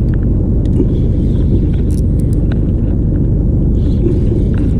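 A fishing boat's engine running steadily: a low, even rumble.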